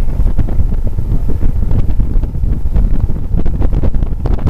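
Loud wind buffeting the microphone on a motorboat under way, a low rumbling rush over the boat's motor and water noise.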